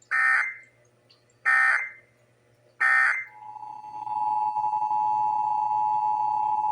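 Emergency Alert System end-of-message code: three short bursts of warbling SAME data tones, about 1.4 s apart. About three seconds in, the EAS attention signal follows: a steady two-tone alert tone near 1 kHz that holds at full level.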